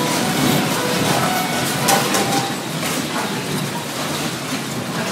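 Steady rattling and clattering of a store's shelving and stock shaking in an earthquake, with a few sharp knocks.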